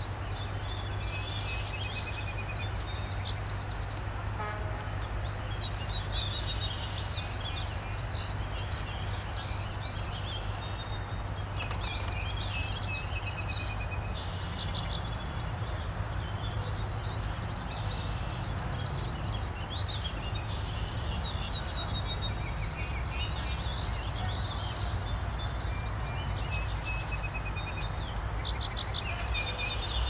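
Honeybees flying in and out at a beehive entrance, over a steady low hum, while songbirds sing repeated trilling phrases throughout.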